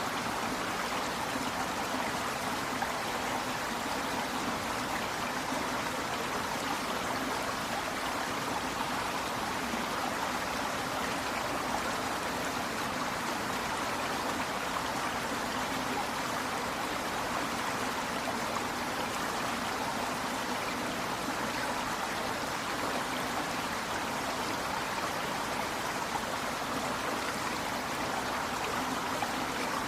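A river running steadily, its water flowing and babbling.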